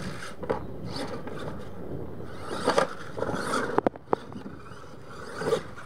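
Radio-controlled monster truck driving on a dirt course, its tyres scrabbling and sliding in loose dirt, with several thumps and knocks as it lands jumps and bounces. The sharpest is a pair of clicks about four seconds in.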